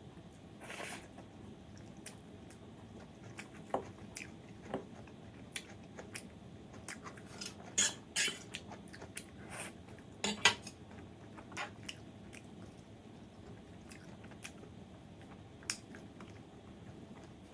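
Eating utensils clicking and scraping against a dish every second or so, loudest about 8 and 10 seconds in, with quiet chewing between the clicks.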